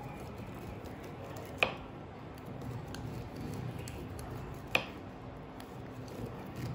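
A kitchen knife cutting kernels off a corn cob on a plastic cutting board: quiet cutting sounds, with two sharp clicks about three seconds apart.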